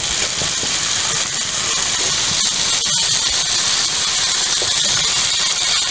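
Marinated soya chunks sizzling steadily in hot oil in a frying pan.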